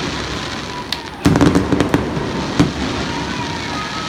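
Fireworks display: a steady crackle of bursting shells, with a quick cluster of sharp pops about a second in and a single sharp bang a little past halfway.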